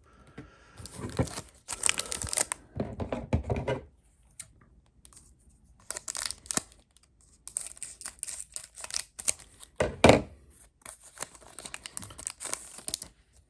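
Foil wrapper of a Pokémon Shining Fates booster pack being torn open and crinkled, in several bursts of tearing and rustling with a sharp rip about ten seconds in.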